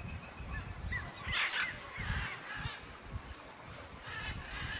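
Short honking animal calls in two clusters, about a second and a half in and again near the end, over the low sloshing of water as men wade through a muddy pond.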